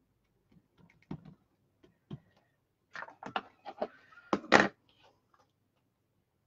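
Black Archival Ink pad dabbed onto a clear acrylic stamp and handled on the craft mat: a few scattered soft taps, then a quick run of taps and plastic clatter about three seconds in, loudest near the end of that run.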